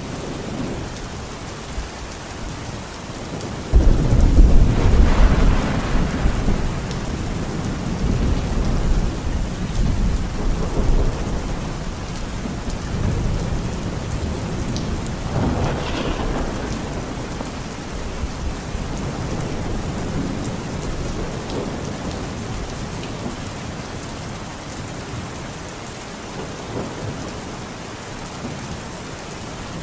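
Heavy rain pouring steadily. About four seconds in, a sudden loud clap of thunder rolls on for several seconds, and a second, sharper thunder crack rumbles near the middle.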